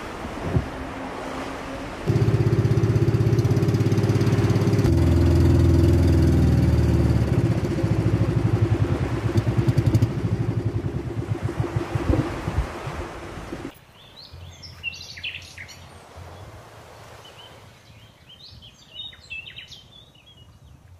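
Outrigger boat's motor running with a fast pulsing beat; about two seconds in it gets much louder. About two-thirds of the way through it stops abruptly, and birds chirp over a faint low hum.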